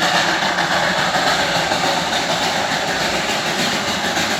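Darjeeling toy train running, a steady, even noise with no single knocks or whistles standing out.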